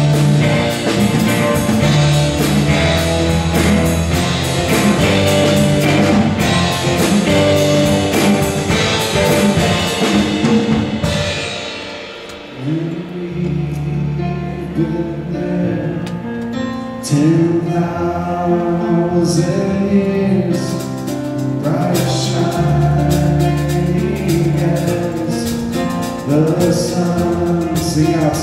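Live worship music from a band: twelve-string acoustic guitar, drum kit and singing. It plays full for the first ten seconds or so, thins out briefly about twelve seconds in, then builds again with sung lines and cymbal crashes.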